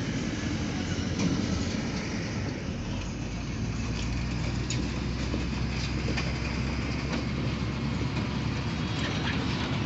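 Steady low rumble of a moving motor vehicle, with scattered light clicks and rattles.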